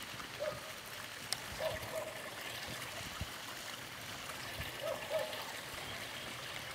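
Steady rushing of flowing water, with a single faint click about a second in.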